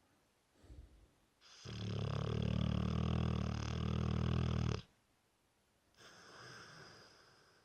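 Dorset Olde Tyme Bulldog snoring: one long, loud, buzzing snore lasting about three seconds, then a softer, breathier snore near the end.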